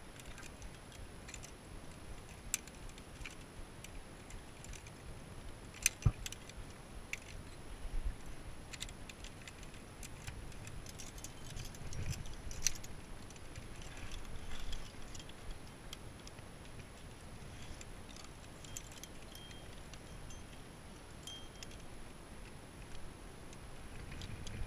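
Climbing gear clinking: metal carabiners and protection knocking together on a harness rack in scattered light clicks and jingles, with two sharper clicks about six seconds in.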